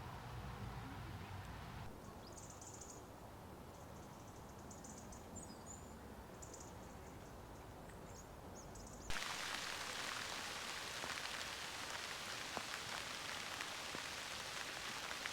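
Wind rumbling on the microphone, then faint high bird chirps, then about nine seconds in an abrupt change to steady rain falling, with many small drop ticks; the rain is the loudest part.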